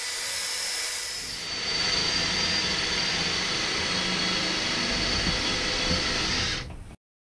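Cordless power tool cutting into a sheet-metal HVAC return duct: a steady high whine over a loud grinding rasp for about five seconds, after a rising hiss at the start, cutting off abruptly near the end.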